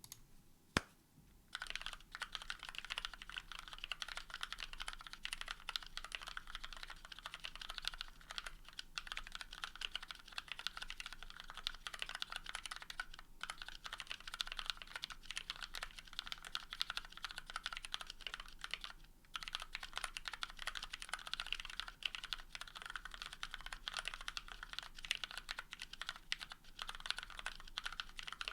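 Typing on a custom 60% mechanical keyboard with lubed and filmed retooled Cherry MX Black linear switches, GMK keycaps, a carbon fiber plate and foam between PCB and plate. A single keystroke, then fast continuous typing from about a second and a half in, with two brief pauses.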